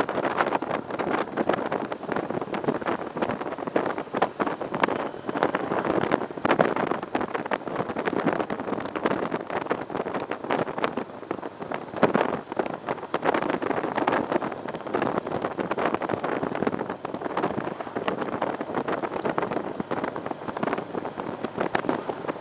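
Motorcycle riding at road speed: wind buffeting the camera's microphone with a constant rapid flutter, over the motorcycle's running noise and tyre roar.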